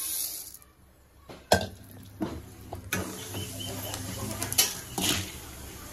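Dry chana dal poured into an oiled steel kadai, then stirred with a steel spoon: the spoon scrapes and knocks against the pan several times, the sharpest knock about a second and a half in, over a faint sizzle of the oil.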